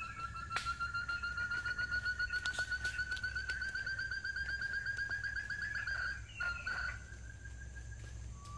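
Forest quail call: a long trill of rapid pulsed notes, slowly rising in pitch for about six seconds, breaking off into a short burst, then starting again near the end.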